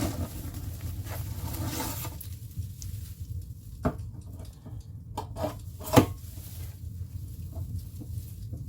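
A few sharp taps and clicks, the loudest about six seconds in, with light rustling in the first two seconds, over a steady low hum.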